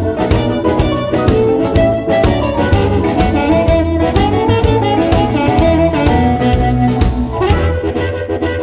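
Electric blues instrumental: amplified harmonica and electric guitar playing over bass and drums. The bright top end cuts away near the end.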